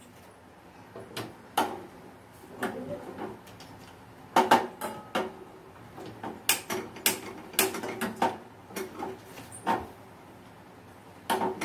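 Steel cooking vessels and utensils knocking and clinking against each other and the gas stovetop: a string of irregular sharp clicks and clanks, some with a short metallic ring.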